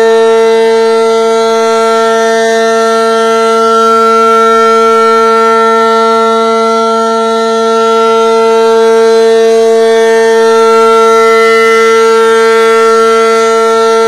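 ACA Allertor 125 rotating outdoor warning siren sounding a steady, loud, single held tone rich in overtones, its loudness dipping and swelling slightly as the horn turns. The uploader labels it "undershot", a siren running below its full rated pitch.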